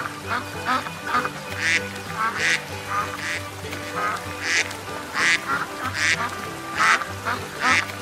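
Ducks quacking over and over, short sharp quacks one or two a second, over background music.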